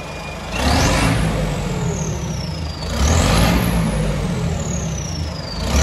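Mahindra Yuvo 575 4WD tractor's four-cylinder diesel engine with a fitted turbocharger, revved in short blips: twice, and a third time at the very end. Each blip brings a quickly rising turbo whine, then a long whistle that falls in pitch as the engine drops back.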